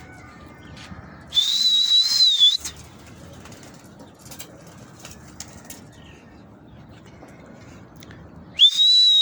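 Two loud, sharp whistles, each a single steady high tone lasting about a second, the first about a second in and the second near the end: a pigeon keeper whistling to his flock of pigeons in flight.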